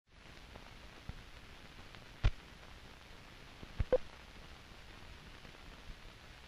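Surface noise of an old film print's soundtrack running over blank countdown leader: a steady faint hiss with a few sharp clicks and pops. The loudest pop comes about two seconds in, and a close pair follows near four seconds.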